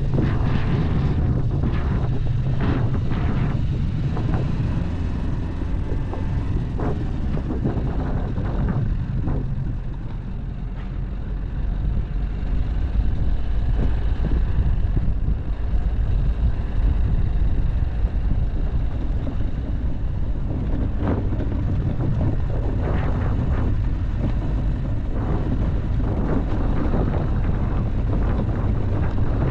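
Dacia Duster driving off-road: a steady low engine and road rumble with frequent knocks and rattles as it goes over rough ground.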